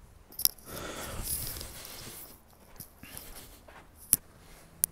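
Footsteps in snow and phone handling noise: a soft rustle about a second in and three sharp clicks, one near the start and two near the end.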